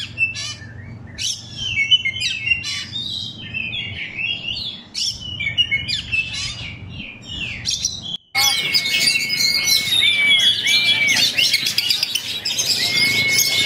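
Sumatran Oriental magpie-robin (kacer) singing: a rapid run of varied chirps, trills and whistled phrases. About eight seconds in, the sound cuts out briefly and picks up with a denser song that holds long, level whistled notes.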